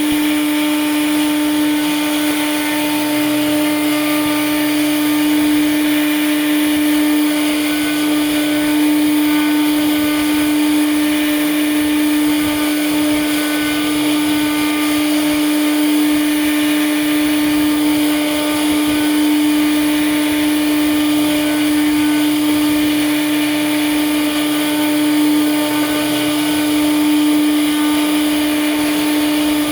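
CNC router spindle running steadily, a constant whine holding one pitch over the hiss of the machine.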